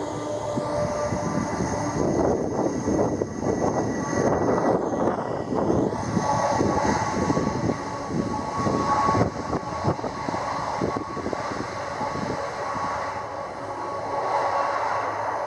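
Jet noise from a Boeing 747-400's four turbofan engines on the landing roll just after touchdown: a loud, continuous rumble with a steady whine, swelling and fading unevenly.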